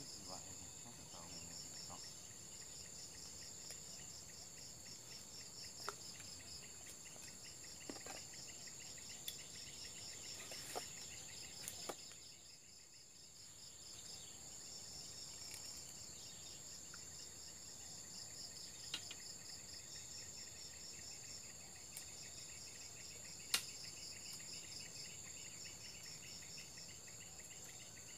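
Faint, steady chorus of insects trilling, a high pulsing buzz that briefly fades a little before halfway through. A few sharp clicks are scattered through it, the loudest about two-thirds of the way in.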